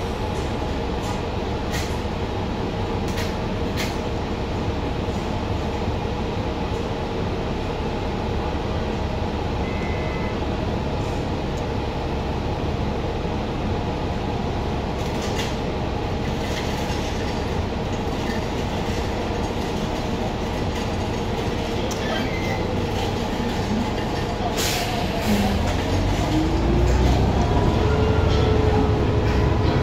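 Cabin noise inside a New Flyer Xcelsior XN40 natural-gas city bus on the move: a steady engine and road rumble with a few held tones and light rattles. About 25 seconds in, a whine rises in pitch and the noise grows louder as the bus speeds up.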